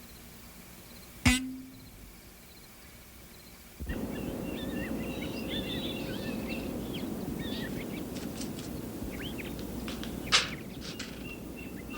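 A single sharp strike with a brief ringing tone, then a steady outdoor ambience of small birds chirping and tweeting over a constant low noise bed, with one sharp click near the end.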